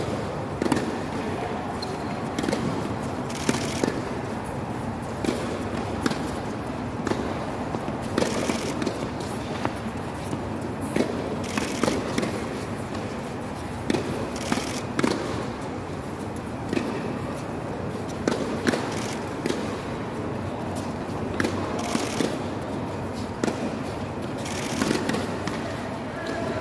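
Tennis balls struck by rackets and bouncing on an indoor hard court: irregular sharp pops, about one to two a second, each with a short echo from the domed hall, over steady background noise.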